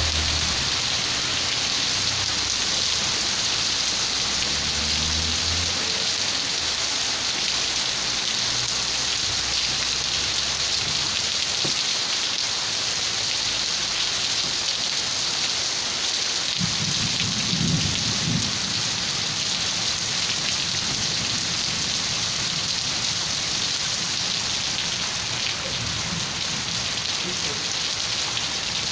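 Steady heavy rain falling, an even hiss. Low rumbles come through in the first few seconds and again about two-thirds of the way through.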